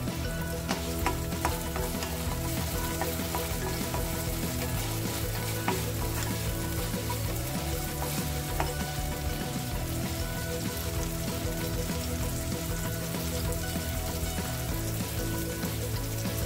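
Chopped onions frying in oil in a nonstick kadai: a steady sizzle, with scattered clicks and scrapes of a spatula stirring them.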